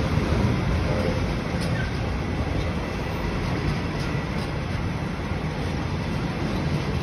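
Container freight train's wagons rolling past at close range: a steady rumble of steel wheels on rail with a few faint clicks.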